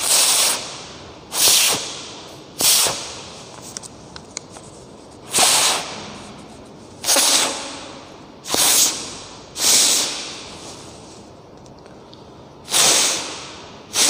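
A person blowing hard over a strip of paper held at the lips, in about eight sharp puffs of breath at uneven intervals, each fading over about half a second.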